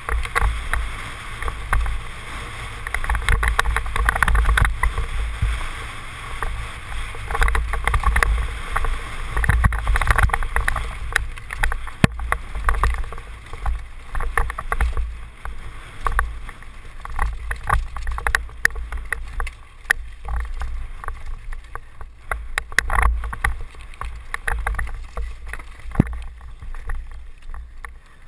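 Wind buffeting a helmet camera's microphone on a fast downhill mountain-bike descent, with tyres on loose rocky dirt and many sharp knocks and rattles as the bike hits stones.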